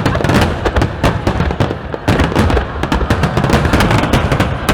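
Fireworks display going off: a dense, rapid crackle of many sharp bangs and pops over a continuous low rumble of booms.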